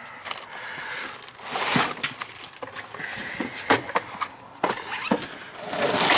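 Rummaging through a box of parts: rustling and shuffling with several sharp knocks and clinks as items are moved.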